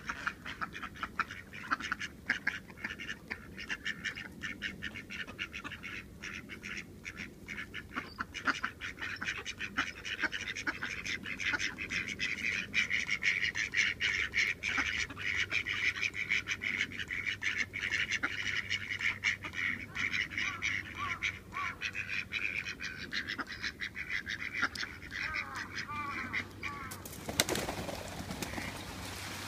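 Mallard ducks calling in dense, quick runs of short quacks. Near the end comes a brief burst of wing flapping as two drakes fight.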